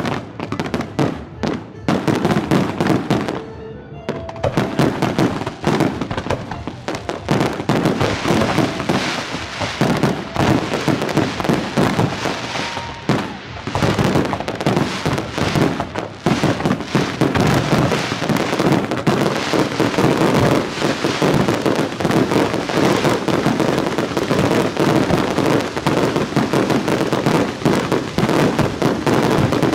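Fireworks display: many aerial shells bursting in rapid, overlapping bangs and crackle. There are short lulls about four and thirteen seconds in, then a near-continuous barrage.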